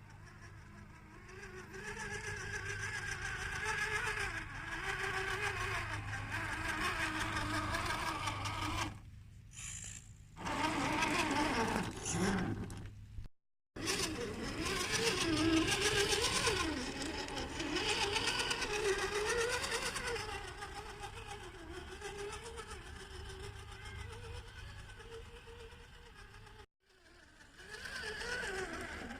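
Electric motor and gearbox of an Axial SCX10 II radio-control crawler whining, the pitch rising and falling with the throttle. The sound breaks off abruptly a few times and starts again.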